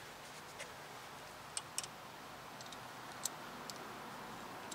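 A few light, sharp metallic clicks and ticks, irregularly spaced, from a wrench and fittings being handled at a rear disc-brake caliper during brake bleeding, over a steady faint hiss.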